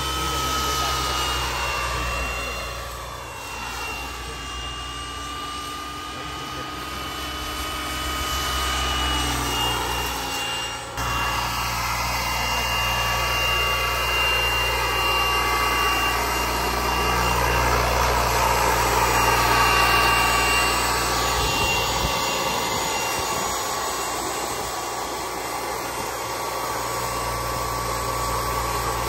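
Kerosene gas turbine of a Whiplash 700 RC helicopter running at flight speed: a steady high-pitched whine over the rush of the rotor. The pitch swoops up and down in the first few seconds as it flies past, and there is an abrupt break about 11 seconds in.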